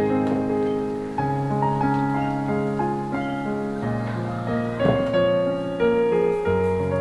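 Gentle background piano music with a steady run of notes, and a brief soft rustle about five seconds in.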